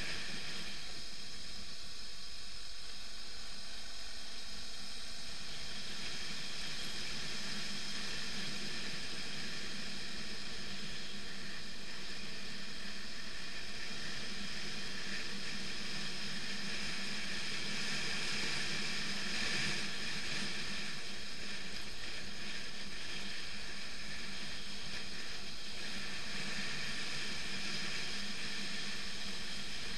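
BMW F 650 GS motorcycle riding on a gravel dirt road: the engine runs steadily under a continuous hiss of wind and tyres on gravel.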